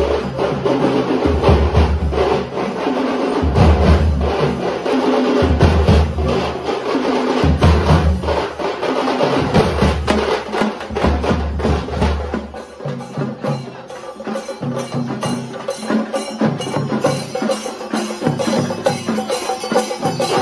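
A street drum troupe beating drums with sticks in a loud, fast rhythm. Deep bass-drum thumps fall about once a second until about halfway through, then drop away, leaving the rapid higher stick strokes.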